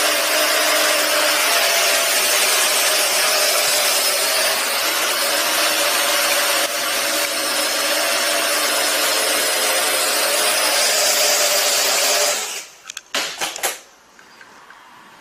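Quadcopter drone's four rotors running steadily at full thrust with a high motor whine, the drone held against the ceiling because ultrasonic pulses are jamming its ultrasonic altitude sensor. About 12 seconds in the motors cut out and a few clattering knocks follow as it drops to the floor.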